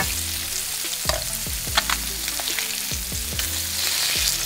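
Bullseye snakehead fillets sizzling steadily as they shallow-fry in oil in a nonstick pan, with a slotted spatula clicking and scraping against the pan as the fillets are turned.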